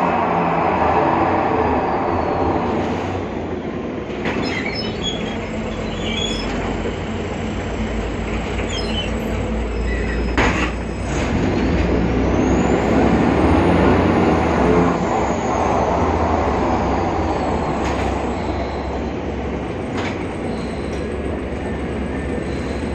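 Inside a BredaMenariniBus Avancity Plus city bus under way: the drivetrain runs with the strange sound that comes from its differential, over steady road rumble. A short knock comes about ten seconds in, and a high whine rises and falls a few seconds later.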